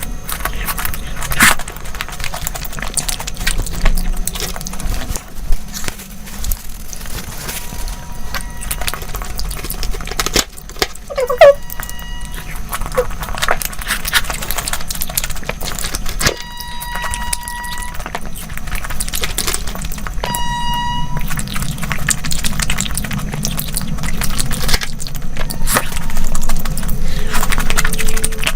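Close-miked eating sounds: irregular chewing, smacking and crunching, over a low hum. Two short, steady horn-like beeps sound a few seconds apart in the second half.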